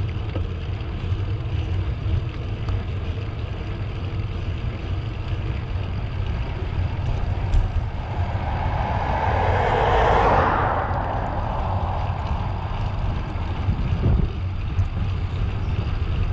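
A motor vehicle passing: a rush of tyre and engine noise that swells from about halfway in, peaks, and fades away again, over a steady low rumble of wind on the microphone from riding.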